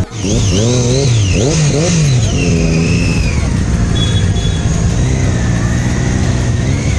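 Motorcycle engine revved in quick blips, the pitch rising and falling about four times over the first two seconds, then held at a steady speed.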